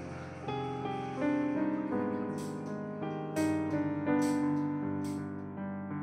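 Background piano music, a gentle run of struck notes, with a soft swish now and then in the middle.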